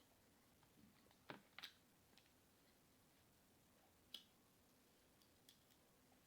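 Near silence with a few faint clicks of eating: a pair about a second and a half in and another at about four seconds.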